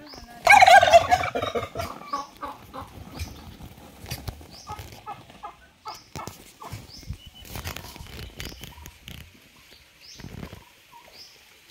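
Farm turkey gobbling: one loud, fast warbling gobble about half a second in, then quieter short calls and clicks.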